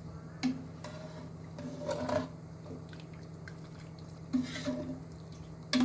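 A spoon clinking and scraping against a metal cooking pot a few times, as the spiced water for the biryani is stirred while it comes to the boil, over a steady low hum.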